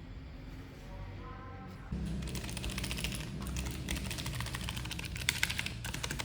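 Aula F2088 mechanical keyboard being typed on fast: a dense run of key clicks that starts about two seconds in.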